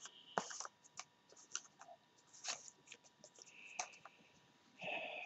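Faint scattered light clicks and taps, with a short scraping rustle just before the four-second mark and another near the end: small craft supplies being handled on a wooden table.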